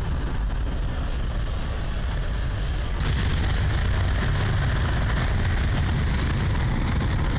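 Steady low rumble of a heavy vehicle's engine. About three seconds in it abruptly turns brighter and a little louder.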